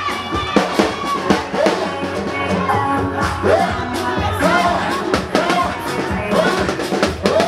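Live band music: a drum beat with a voice singing over it.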